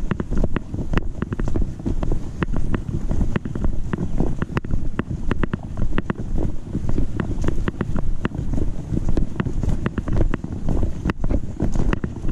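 A hiker's footsteps on a dirt trail heard through an action camera clipped to a backpack chest strap: a heavy low rumble as the camera jolts with each stride, about two strides a second, with many sharp ticks and crunches.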